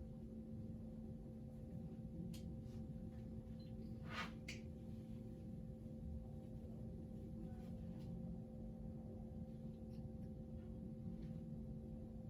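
Steady low hum with a few faint clicks and a brief scrape about four seconds in, from handling a marble-sealed glass soda bottle that is still being worked at to push the marble in.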